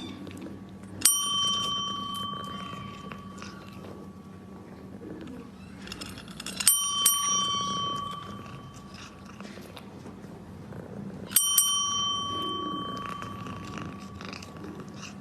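A small metal bell rung three times, about five seconds apart, the second and third as quick double rings, each ringing on and fading over a second or two.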